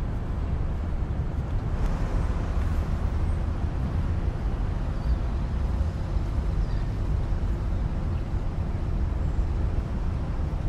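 Steady city street traffic noise: a low rumble of passing cars and motor scooters.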